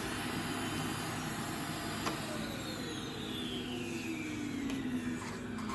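Kärcher vacuum cleaner running quietly with a steady rush of air. A click sounds about two seconds in, and after it the motor's pitch falls steadily over the next few seconds.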